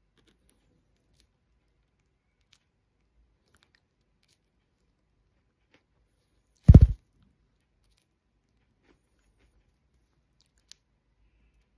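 Budgerigar nibbling iceberg lettuce with its beak: faint, scattered clicks and small crunches. Just past the middle, one short, loud, low thump.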